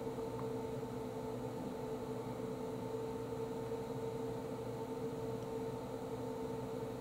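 A steady machine hum: one constant pitched tone with its overtone over an even hiss, unchanging throughout.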